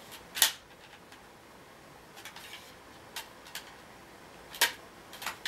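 A few sharp clicks and knocks of hard plastic as a Dyson V6 charging dock is handled and turned over. The loudest comes about half a second in, with weaker taps in the middle and another loud click near the end.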